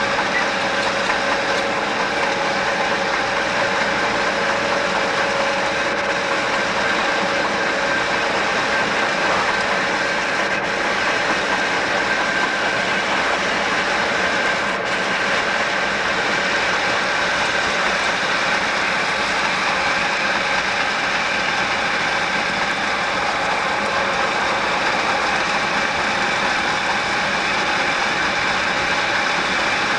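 Southern Pacific EMD GP9 diesel locomotives, with two-stroke V16 engines, running at about 25 mph, heard from a car pacing alongside: a steady mix of engine and rail noise with the car's road and wind noise. One locomotive has a flat wheel, which is why the train is held to this slow speed.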